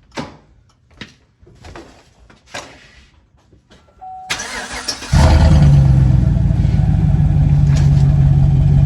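A few light clicks and knocks and a short beep, then the 2015 Chevrolet Silverado's 5.3-litre V8 is cranked and catches a little past halfway, running loud and steady at idle. The muffler has been removed, so the exhaust runs open behind the resonator; to the owner it is surprisingly not that loud still.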